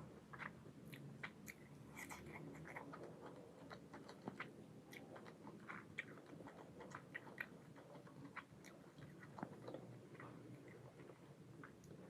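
A person chewing a mouthful of mutton curry and fried rice close to the microphone. The chewing comes as faint, irregular clicks and smacks, several a second.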